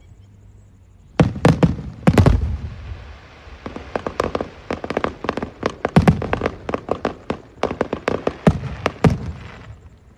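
Fireworks going off: after about a second of quiet, a long irregular run of sharp bangs and crackles, some close together, that dies down near the end.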